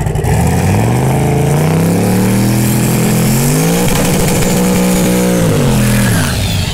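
A drag-racing truck's engine revving loud through a side exhaust that exits out the fender. The pitch climbs over the first couple of seconds, climbs again to a held high note about four seconds in, then drops away near the end.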